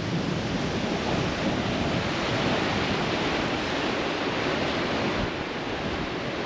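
Sea surf breaking and washing over a rocky granite shoreline, a steady rushing, mixed with wind buffeting the microphone.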